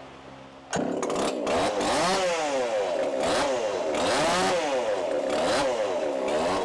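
Brisco-built 'Stickers 2.0' two-stroke chainsaw running on a chainsaw dyno, coming in abruptly under a second in, its engine pitch rising and falling about once a second. It is tuned rich ('fat'), as it was received.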